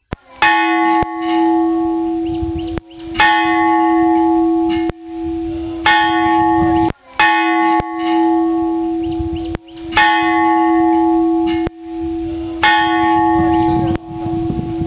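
Large bronze temple bell struck about six times, every two to three seconds. Each stroke rings out with a strong steady low hum and higher overtones that fade; the bell is said to end its ring in an 'Om'.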